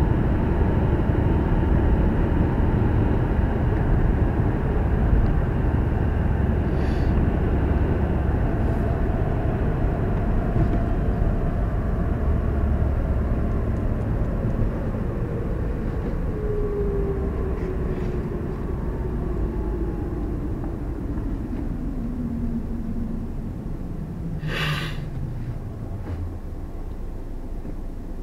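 Car running on the road, heard from inside the cabin: steady low road and engine rumble. From about halfway through, a whine falls steadily in pitch while the overall level drops, as the car slows. There is a single sharp click near the end.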